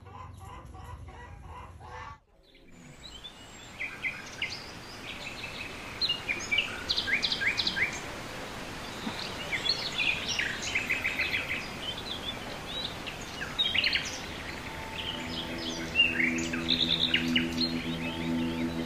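Small birds chirping in quick high trills and runs of short notes, after a different sound cuts off about two seconds in. Soft, steady held musical tones come in near the end.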